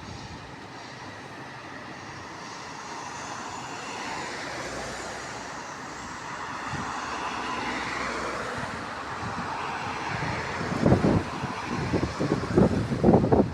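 A train running through the station, a steady rumble and hiss that builds towards the middle and then eases. In the last few seconds, gusts of wind buffet the microphone.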